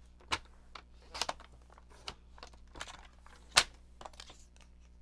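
Gray cardstock being cut and handled on a sliding-blade paper trimmer: scattered clicks and paper crinkles, the loudest a sharp click about three and a half seconds in.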